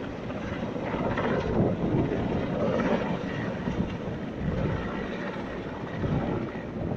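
Helicopter in flight: continuous engine and rotor noise.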